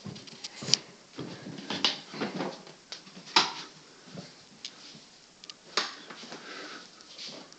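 Irregular knocks, clicks and rustling of objects being handled and moved about, the loudest knocks about three and a half and six seconds in.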